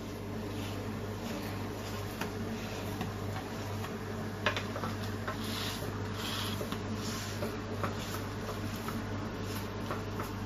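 Egg-dipped bread frying in butter on a flat tawa, a soft steady sizzle, with a few light clicks and one sharper tap about four and a half seconds in.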